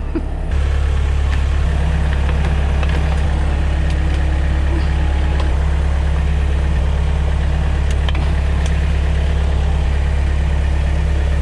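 Lorry's diesel engine idling steadily, a deep even hum that steps up in level about half a second in and then holds.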